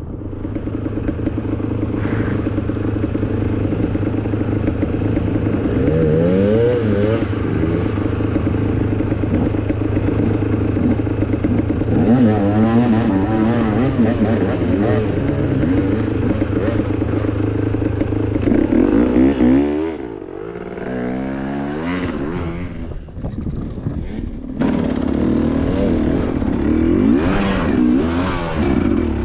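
Enduro dirt bike engine running under throttle, its revs rising and falling over the trail. About twenty seconds in it drops back to low revs for a few seconds, then picks up again.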